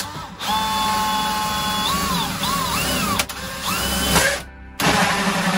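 Power drill with a hole saw cutting a hole through fiberglass. Its whine holds steady, then wavers in pitch as the cutter bites. It stops briefly about four seconds in and starts again.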